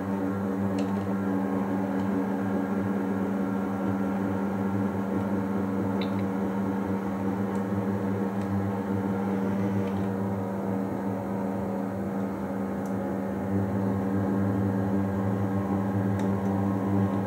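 Steady low electrical hum, with a few faint ticks.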